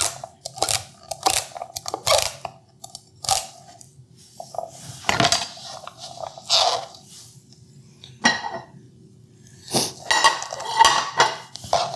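Forged santoku knife rock-chopping celery on a plastic cutting board: crisp strokes about two a second, each a crunch through the stalk and a tap of the blade on the board. After about three seconds come quieter handling sounds, then a knock and some clatter near the end.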